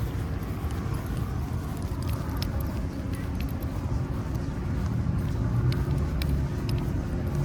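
Road traffic: a vehicle engine running steadily, growing louder from about five seconds in, with scattered light clicks over it.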